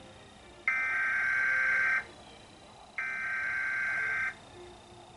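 Emergency Alert System SAME header tones: two buzzy digital data bursts of about 1.3 seconds each, a second apart, part of the header that is sent three times to open an alert.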